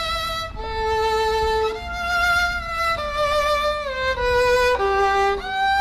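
Music: a slow single melody of long held notes, sliding from one note to the next now and then.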